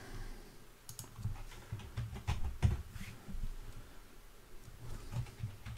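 Computer keyboard and mouse clicks, a few light taps at irregular intervals, over a low steady hum.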